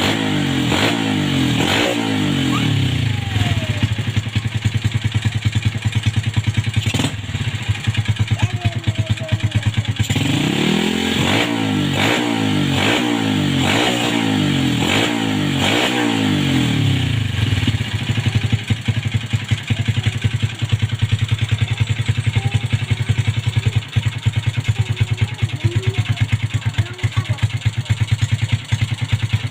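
Yamaha Vega R's four-stroke single-cylinder engine running with its carbon-fouled spark plug freshly cleaned. The revs drop back to idle in the first few seconds, are blipped up and down several times from about ten seconds in, then settle to a steady idle.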